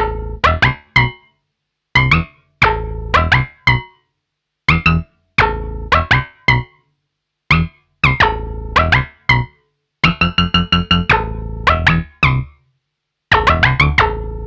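Modal Cobalt 8 virtual-analogue polyphonic synthesizer playing a plucky preset: short, bright-attacked notes and chords that die away quickly, played in short phrases with brief gaps between them.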